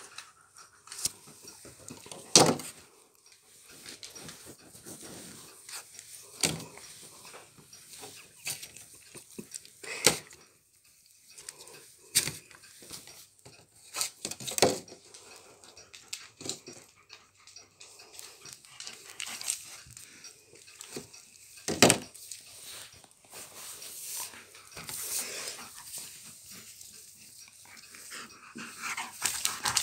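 A dog rummaging at a plastic tub: scattered sharp knocks and clatters of the plastic every few seconds, with dog sounds and scuffling in between.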